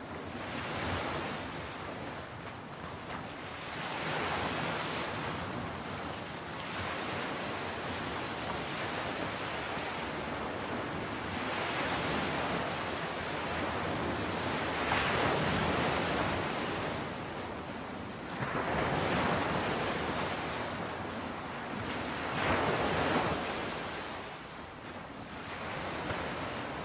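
Waves washing in: a rushing hiss that swells and fades every few seconds.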